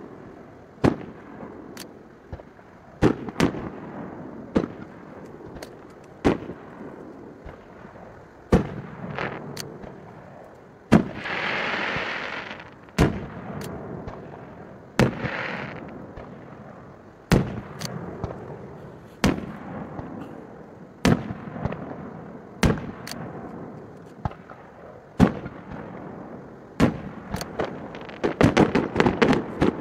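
Fireworks going off one after another: sharp bangs about every second, each with a short fading tail. Near the middle there is a hissing rush lasting about two seconds, and a shorter one follows soon after. Near the end comes a rapid run of bangs.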